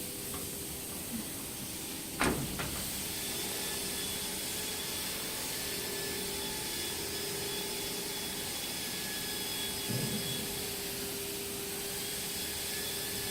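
Steady machine hiss with faint whining tones, broken by a sharp knock about two seconds in and a softer thump near ten seconds.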